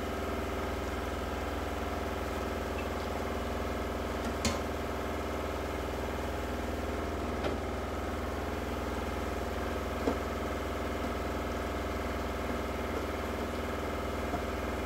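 A steady mechanical hum runs throughout, with a few light clicks of utensils against pans, the last one near the end as the pan of broad beans is stirred.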